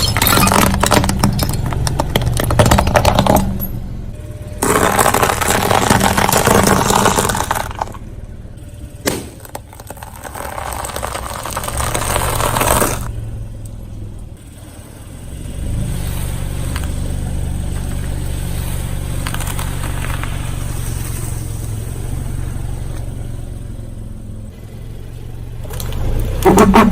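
Car engine running as the tyres roll over objects being crushed, with three long loud stretches of crunching and scraping, then a steady low engine drone before another loud burst near the end.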